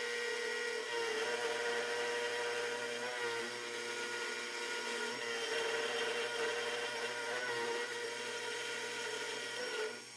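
Milling machine running, its end mill taking a finishing pass across an aluminium block: a steady motor whine with cutting noise over it, which drops away sharply near the end.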